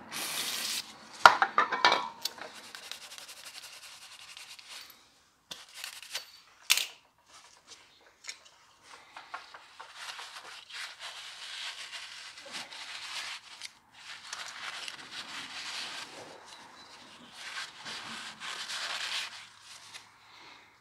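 Rag rubbing and wiping on metal, cleaning excess grease off the axle nut and hub's mating surface, in stretches with short pauses. About a second in, a few sharp metal clinks ring out, the loudest sounds here.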